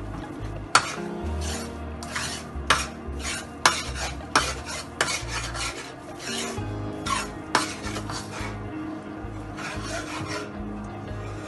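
A spatula scraping and stirring thick besan roasting in ghee in a steel kadai, with irregular scrapes and clinks against the pan, sometimes two or three a second.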